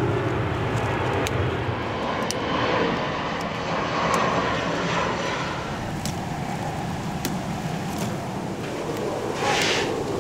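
A steady low engine drone that slowly fades, with a few light clicks and a short rustle near the end.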